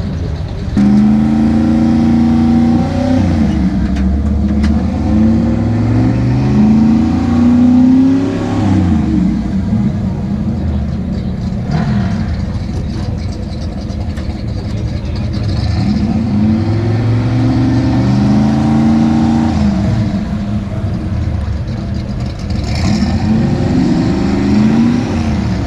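Drag-racing cars' engines accelerating hard down the strip, the pitch climbing, dropping back at each gear change and climbing again. A loud run starts suddenly about a second in, another follows midway, and a shorter one comes near the end.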